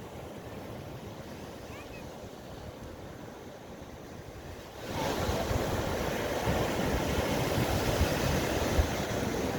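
Ocean surf washing on a beach, a steady rushing noise that turns suddenly louder and fuller about halfway through.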